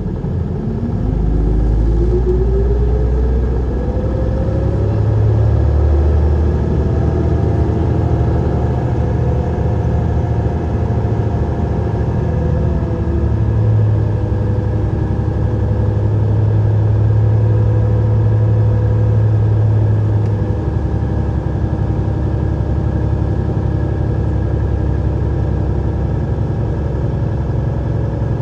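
Isuzu Erga city bus (PDG-LV234N2) with its diesel engine under way: it accelerates with a whine rising in pitch over the first few seconds, then runs steadily under load. There is a change in engine note a little before the halfway point, and it eases off about two-thirds of the way through.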